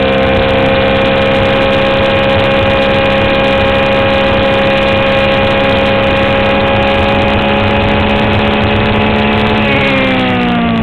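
Onboard sound of a Swift DB4 Toyota Atlantic race car's engine held at a steady high pitch under full throttle, with a rush of wind noise. Near the end the engine note begins to fall as the throttle is lifted.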